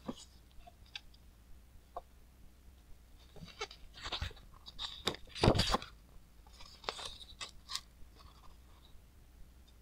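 Glossy pages of a large book being handled and turned: paper rustling and crinkling with scattered soft clicks, loudest a little past the middle.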